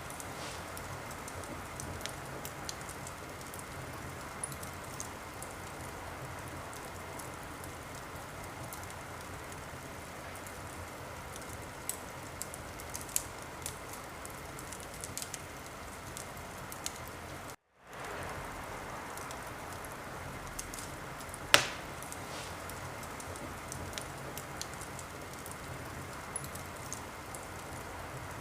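Wood fire burning in a fireplace: a steady hiss with frequent small crackles and one loud pop about three-quarters of the way through. The sound cuts out completely for a split second a little past the middle.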